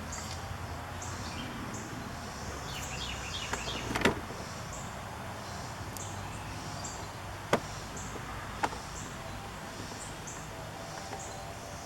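A few sharp clicks and knocks of plastic door trim and switch parts being handled, the loudest about four seconds in, over a steady low hum. Faint short high-pitched chirps repeat about twice a second throughout.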